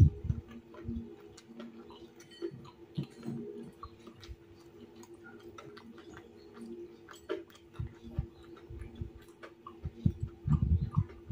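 Close-up eating sounds: chewing crispy fried tahu bakso with rice, scattered small crunches and clicks, with a few heavier low bumps near the end. A steady low hum runs underneath.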